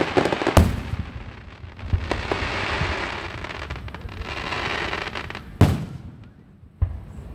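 Fireworks going off: loud sharp bangs about half a second in and twice near the end, with smaller pops and a stretch of dense crackling between them.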